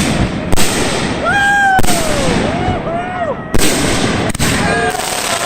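Fireworks exploding: several sharp bangs with crackling between them, and rising-and-falling wailing tones over the top.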